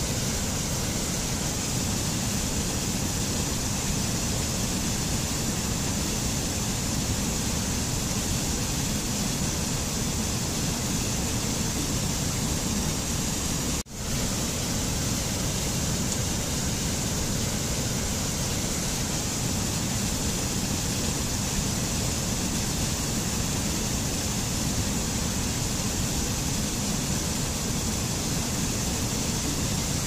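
Mountain stream rushing steadily over rocks and small falls, a constant roar of white water. It cuts out for a split second about halfway through.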